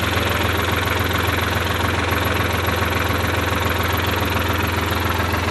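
Sonalika S50 tractor's three-cylinder direct-injection diesel engine idling with a steady, even drone.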